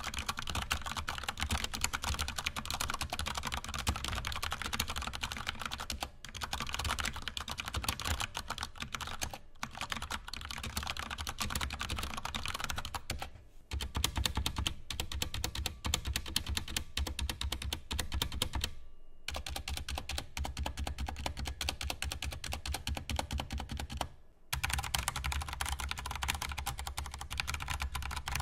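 Corsair K70 RGB PRO mechanical keyboard with Cherry MX Brown switches being typed on fast, a dense run of key clacks broken by a few short pauses, with the scratchy sound typical of brown switches. Partway through, the spacebar, Enter and Shift are pressed on their own, and near the end the arrow keys.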